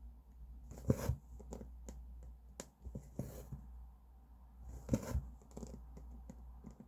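Cross-stitching: a needle is pushed through the fabric and the thread is drawn through with a rasping pull three times, about two seconds apart, with small clicks and taps in between.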